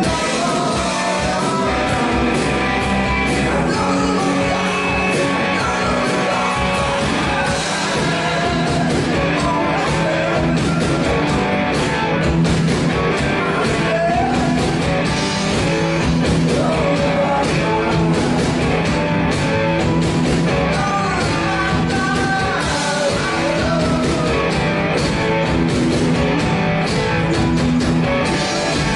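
Live rock band playing, with singing, electric guitar and drums.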